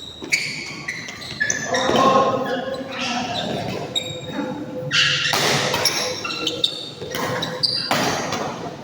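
Badminton doubles rally in a large indoor hall: sneakers squeaking in short chirps on the court, sharp racket hits on the shuttlecock, and players' voices. The sounds echo in the hall.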